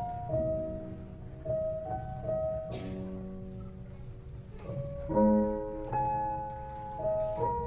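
Slow piano music: held notes and chords, each changing every half second to a second.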